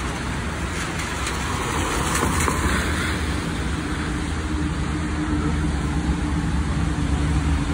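Steady road traffic on a rain-wet avenue: tyres hissing on the wet road and engines rumbling, with a steady low hum coming in about halfway through.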